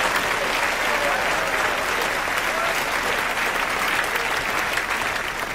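Audience applause: a roomful of seated people clapping, easing off slightly near the end.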